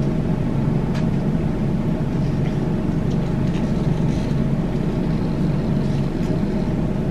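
A steady low hum throughout, with a faint click about a second in and a few light ticks as a purse strap's metal fittings are worked onto the bag.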